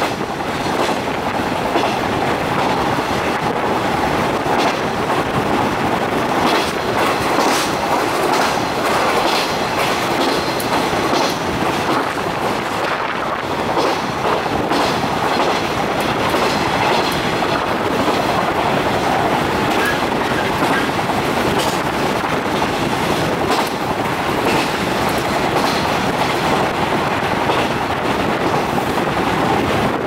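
JR 415 series electric train running at speed, heard from inside the carriage: a steady rumble of wheels on rail with repeated clickety-clack from the rail joints.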